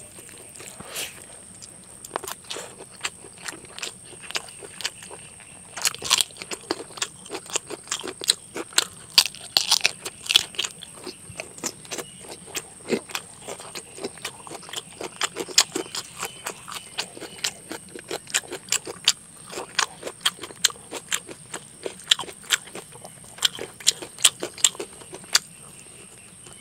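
Close-miked eating: a man chewing rice and chicken curry eaten by hand, with many quick, irregular wet smacks and clicks of lips and mouth.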